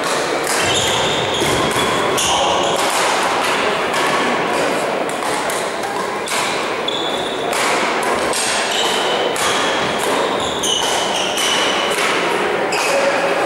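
Badminton doubles play in a large hall: sharp racket strikes on the shuttlecock and footfalls on the court, mixed with several short, high shoe squeaks on the floor.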